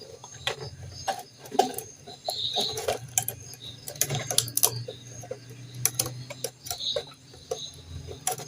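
Irregular light clicks and taps of a new carbon brush being worked into its holder in a blender motor, over a faint low hum.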